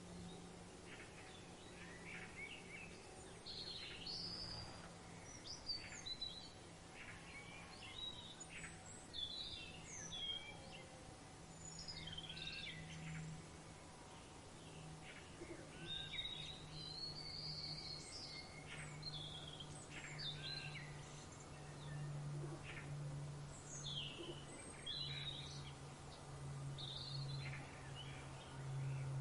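Many birds chirping and calling in quick, overlapping short notes and pitch sweeps, over a steady low hum that grows louder toward the end.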